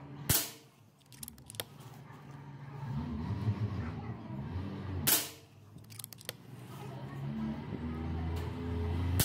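Pellet air rifle firing: sharp single shots about five seconds apart, with a third right at the end.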